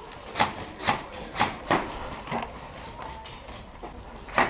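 Footsteps, walking at about two steps a second, stopping about halfway through, with one more step near the end.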